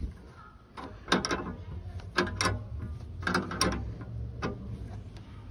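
Ratcheting wrench clicking in short runs, about once a second, as it is worked back and forth loosening the base nut of a truck's radio antenna.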